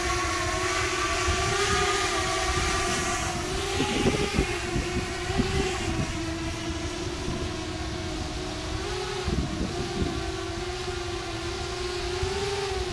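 Eight-motor cinelifter FPV drone (Xnova 2812 motors, 8-inch three-blade props) in flight: a steady propeller hum whose pitch wavers slightly as the throttle shifts, over a low rumble.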